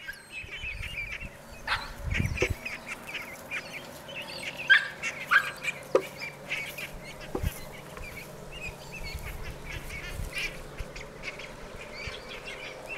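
A small flock of young ducks calling almost constantly with short, high-pitched calls while a dog herds them, a few calls louder than the rest.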